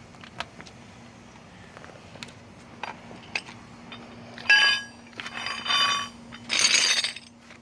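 Metal tools and car parts clinking and clanking during brake and wheel work, with a few light knocks early and then several ringing metal strikes. A short loud burst of hiss-like noise comes near the end, over a faint steady hum.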